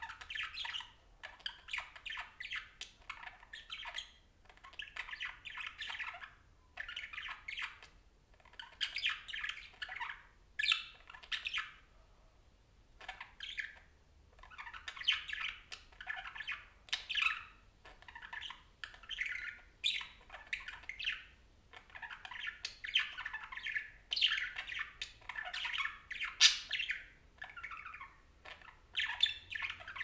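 Budgerigar chattering: fast runs of chirps and squawks in phrases of a few seconds, with short pauses between them.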